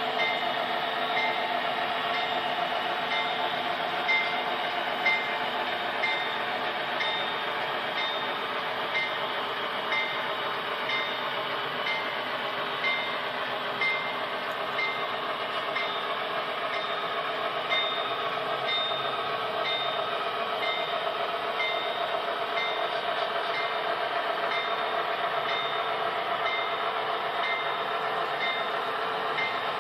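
Model freight train running along its track: a steady mechanical hum with light, regular clicks about twice a second as the cars roll past.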